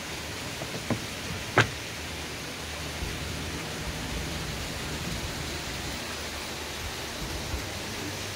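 Steady rushing noise, like running water, inside a canal lock, with two sharp knocks in the first two seconds.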